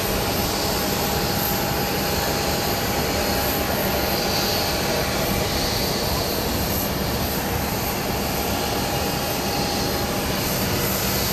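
Jet engines of an Airbus A320 airliner running steadily as it lands: a continuous even noise with a faint steady whine.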